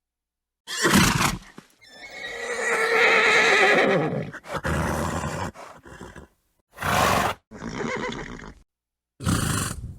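Horse neighing and snorting: a short snort about a second in, then a long wavering neigh, followed by a string of short snorts and blows separated by dead silence.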